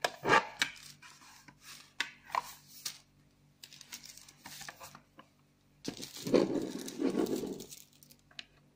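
Handling noise as hands pick up and move a slim metal external DVD drive and its USB cable: sudden knocks and clicks with rubbing, and a longer rustle about six seconds in.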